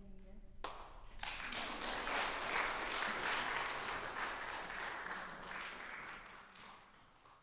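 Audience applauding: a few first claps just over half a second in, swelling into full applause within the next second, then dying away toward the end.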